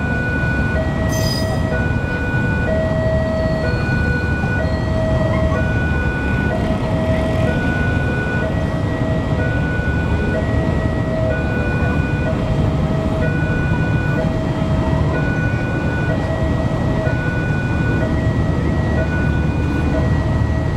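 Railway level-crossing warning alarm repeating a two-note electronic tone, alternating high and low, while passenger coaches roll slowly past with a steady low rumble.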